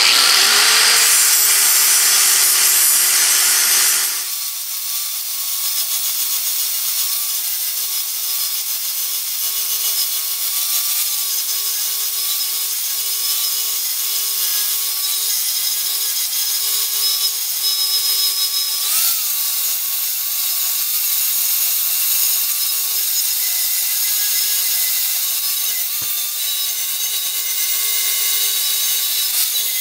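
Electric angle grinder with a flap disc grinding rosette welds flush on a steel plate: a steady motor whine under a grinding hiss. The sound shifts and drops a little about four seconds in, then holds steady.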